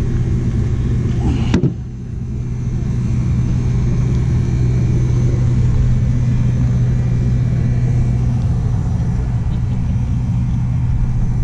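A steady, low mechanical hum over a rumble, like a running machine, with one sharp click about a second and a half in.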